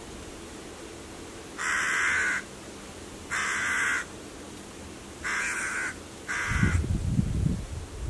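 A crow cawing four times, each caw harsh and about two-thirds of a second long, spaced a second or so apart. A low rumble starts near the end.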